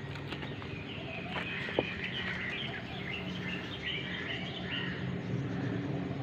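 Small birds chirping in quick, scattered calls over a steady low background hum, with one sharp click a little under two seconds in.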